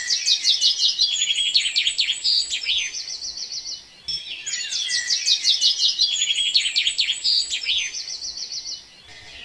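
Bird song: rapid high chirps and trills. The same phrase of about four seconds is heard twice, identical each time, as from a looped recording.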